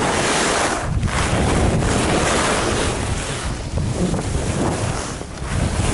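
Wind rushing over a moving skier's camera microphone during a downhill run, mixed with the hiss of skis on snow; the rush is loud and steady, easing briefly about a second in and twice more later.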